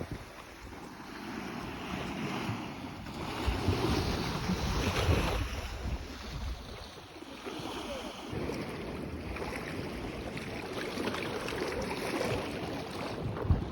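Sea waves washing ashore, with wind gusting across the microphone in uneven low rumbles.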